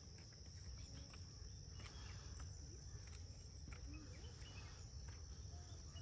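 Faint, steady high-pitched insect drone, with a low rumble beneath it.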